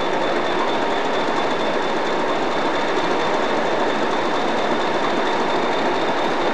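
Steady, even train noise from locomotives in a station: the pair of Class 50 diesels standing with their train and an electric locomotive drawing in on the nearer track. No single knock, horn or change in pitch stands out.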